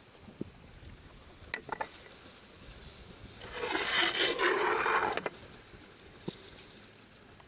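A scraping, rubbing sound lasting about a second and a half in the middle, with a few light knocks before and after it.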